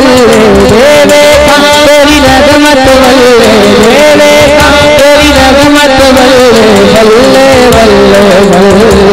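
A man singing a Punjabi naat into a microphone through a loud PA, holding long wavering notes that glide up and down, with low thuds repeating underneath.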